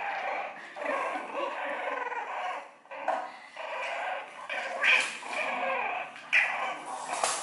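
Two French bulldog puppies yipping and whimpering as they play-fight. There are two sharper, louder yelps about five and six seconds in.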